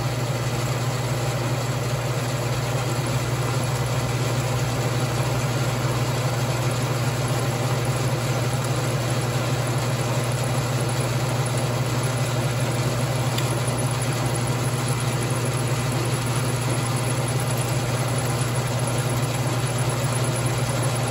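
Logan lathe running steadily with a cutter in its spindle, milling a flat on a workpiece held in a collet block in the milling attachment while it is fed slowly by hand. A constant low hum sits under a broad, even hiss of the machine and the cut.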